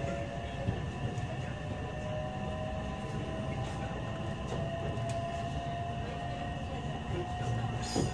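JR West 227 series electric train with a Toshiba IGBT VVVF inverter, heard from inside the motor car: the inverter and traction-motor whine rises slowly in pitch as the train accelerates, over a steady rumble of wheels on the rails. A short knock comes near the end.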